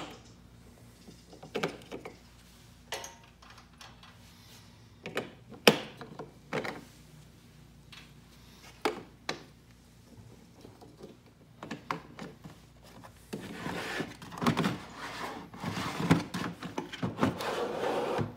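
Scattered knocks and clinks of hand wrenches and bolts on the mower's steel hitch plate. Near the end comes several seconds of close rubbing and scraping mixed with more knocks.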